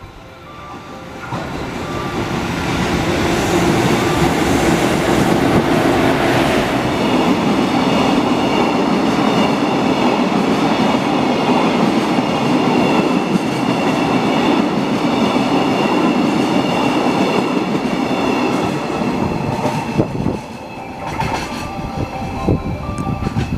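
Locomotive-hauled train of flat wagons running through a station without stopping: a loud, steady rumble and clickety-clack of wheels on rail that builds over the first few seconds and falls away about 20 seconds in as the train's tail passes.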